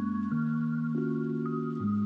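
Background music: sustained mallet-like notes, with the chord changing every half second or so.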